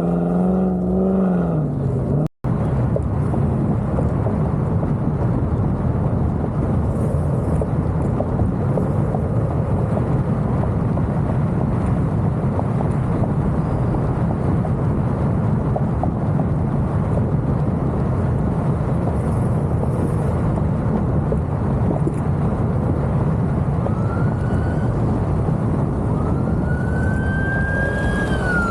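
Loud, steady rumble of car engines and traffic. Near the end, a siren starts to wail with a rising, then falling, pitch.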